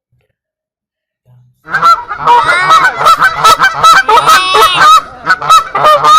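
A flock of birds calling, many overlapping harsh calls at once, starting suddenly a little under two seconds in.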